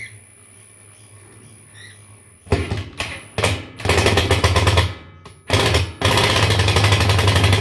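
Cordless power driver driving screws fitted with neoprene washers down onto a tile, in several short bursts and then two longer runs with a rapid, rattling sound.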